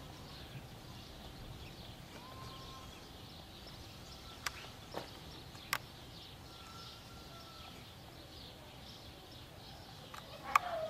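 Faint chirping of birds and animals, with a few sharp clicks around the middle. Near the end comes a louder short call that falls in pitch.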